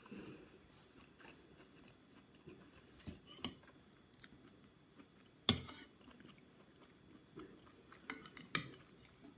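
Metal cutlery clinking and scraping on a ceramic dinner plate, with quiet chewing between. There are a few sharp clinks about three seconds in, the loudest about halfway through, and a quick cluster near the end.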